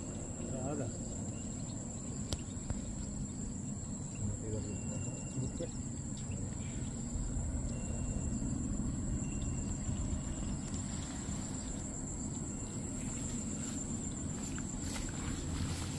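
Insects trilling steadily at one high pitch, with a low rumble of wind on the microphone underneath.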